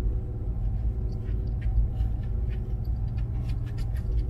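Low, steady rumble of a vehicle driving slowly, heard from inside the cabin, with faint scattered ticks and clicks over it.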